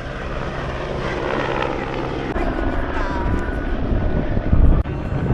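Helicopter flying, its rotor and engine making a steady low drone that grows heavier in the second half, with strong low pulses near the end.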